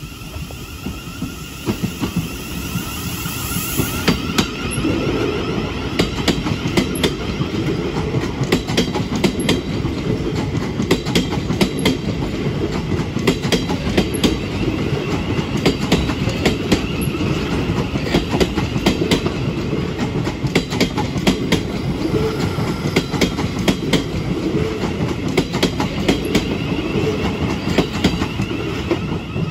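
Two coupled Class 707 Desiro City electric multiple units pulling away and passing close by, their wheels clacking irregularly over rail joints and points above a steady rumble, with a faint whine from the electric traction motors. The sound builds over the first few seconds as the train draws alongside.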